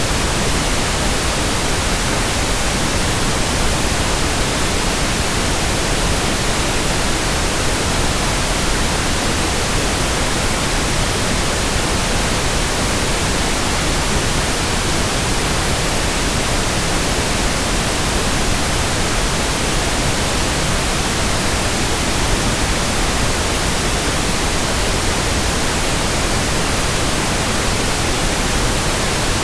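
Steady, unbroken pink noise: an even hiss spread across all pitches, with no tones and no changes.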